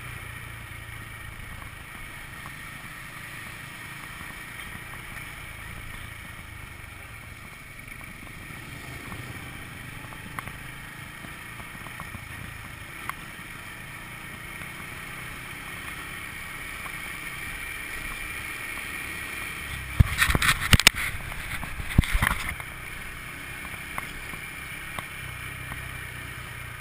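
Honda motor scooter running steadily at low road speed, with wind rushing over the camera's microphone. About three-quarters of the way through comes a short cluster of loud knocks and rattles, twice in quick succession.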